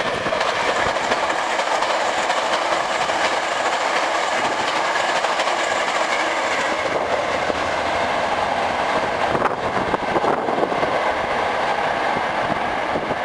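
Hankyu 9300 series eight-car electric train passing at speed without stopping: steady wheel-on-rail running noise.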